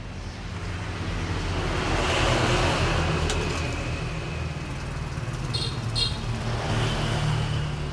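Road traffic: a motor vehicle passing, its engine hum and tyre noise swelling about two seconds in, with another swell near the end. Two short high chirps come in between.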